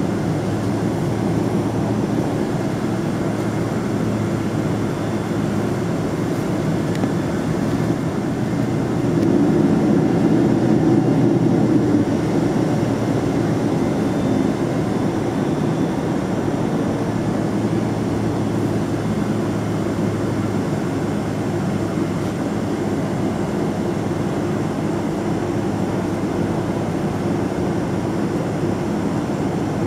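Boeing 777-200ER engine drone heard inside the cabin, a steady low hum and rush at low thrust while the airliner taxis. It swells slightly for a few seconds about nine seconds in.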